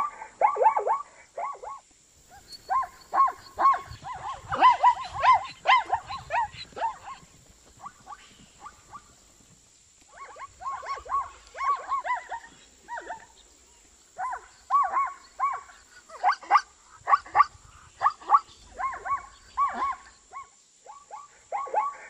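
Zebra calling: bouts of quick, repeated barking yelps, several a second, broken by short pauses.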